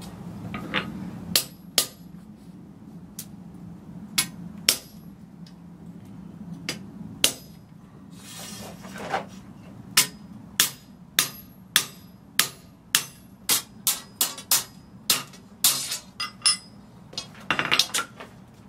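Hammer blows on a slot punch, driving the slug out of a slot punched in a flat steel bar on the anvil, each blow a sharp metallic clink. There are a few scattered blows at first, then a steady run of about two a second from about halfway. The bar has cooled to around a black heat, which is fine here because the slug is only being sheared out.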